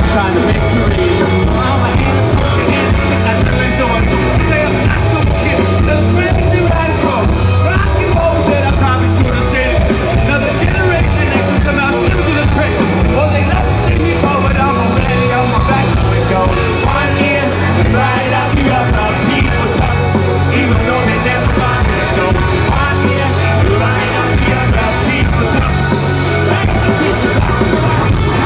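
Live rock band playing loudly through a concert sound system: a lead singer over electric guitars, bass and drums.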